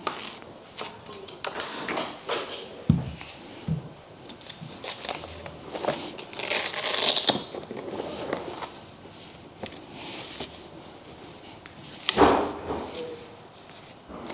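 Handling noises of a shotgun being unpacked from its hard case: the fabric gun sock rustling and sliding off the gun, with scattered clicks and light knocks. Two soft thumps come about three seconds in, a longer scratchy rasp about six to seven seconds in, and a sharper knock about twelve seconds in.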